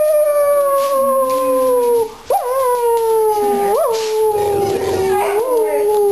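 Salukis howling: long, held howls that slowly fall in pitch, with a short break about two seconds in and a brief upward swoop near four seconds.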